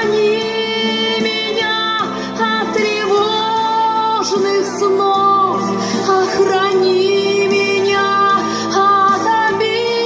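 A song with a woman's singing voice, long held notes with vibrato over a steady instrumental accompaniment.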